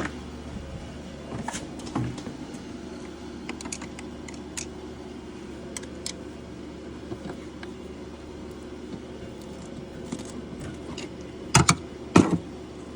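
Small metallic clicks and scrapes of a flathead screwdriver and hand tools working at a snowmobile's chain case cover, then two sharp knocks near the end.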